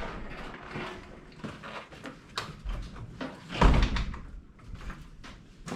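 A series of knocks and clunks, the loudest a heavy thump about three and a half seconds in.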